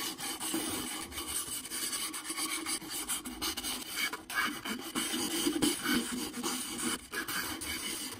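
A strip of sandpaper pulled back and forth around the carved twisted stem of an apple-wood burl goblet: a rasping rub that swells and fades with each stroke.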